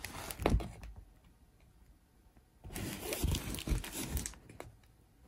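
Clear plastic cover film on a diamond painting canvas crinkling and rustling as the canvas is handled, with a few knocks. It comes in two stretches: through the first second, then again from near the three-second mark for about a second and a half.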